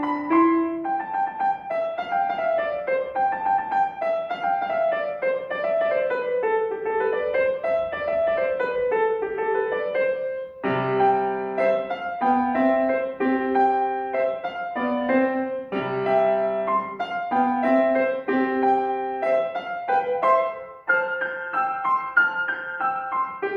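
Solo piano playing folk-song variations. A running melody in the middle register gives way about ten seconds in to heavier chords with low bass notes. Near the end the music moves to a lighter passage higher up.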